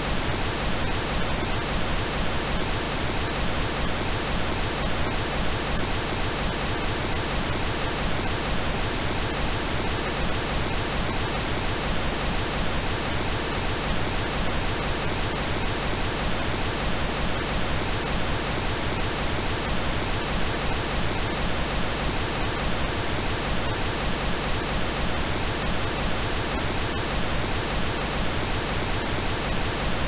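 Steady pink noise: an even, unchanging hiss spread across all pitches.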